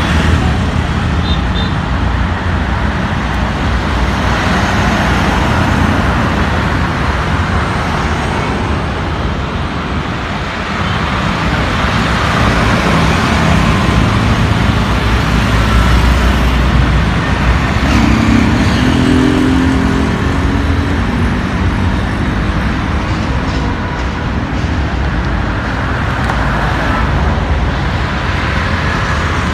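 Steady road traffic on a wide multi-lane city road: cars, scooters, motorcycles and auto-rickshaws passing in a continuous hum of engines and tyres.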